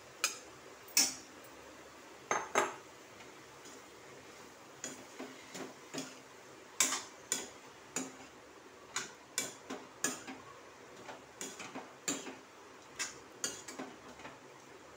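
Steel spatula scraping and clinking against a metal kadai while stirring mushrooms into a thick masala, in irregular separate strokes.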